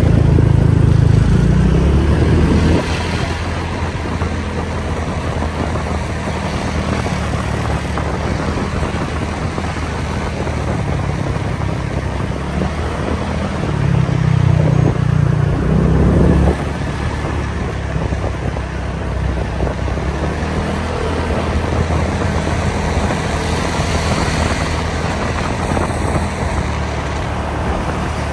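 Busy city street traffic: the steady running of car and motorbike engines with road noise. A louder, low engine hum at the start and again about fourteen to sixteen seconds in cuts off suddenly each time.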